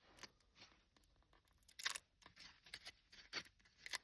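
Faint, scattered rustles and clicks of baseball trading cards being peeled apart and handled; the loudest comes about two seconds in.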